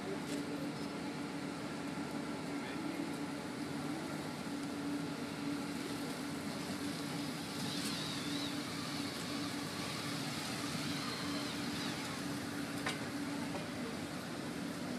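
Steady low engine hum and outdoor traffic noise as a police motorcycle escort and a black BMW saloon drive slowly past.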